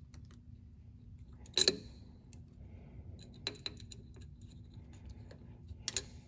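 Safety wire pliers working the cut end of the safety wire on an aircraft oil filter, curling it over. A few sharp metallic clicks and snaps: the loudest about one and a half seconds in, two lighter ones around three and a half seconds, and a quick cluster near the end.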